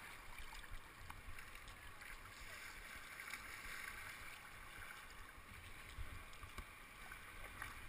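Kayak paddle strokes and river water moving past a whitewater kayak's hull: a faint steady rushing hiss of water.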